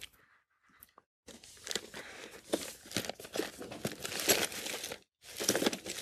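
Rummaging sounds: crinkling and rustling with small knocks as items are handled and searched through, starting about a second in and breaking off briefly near the end.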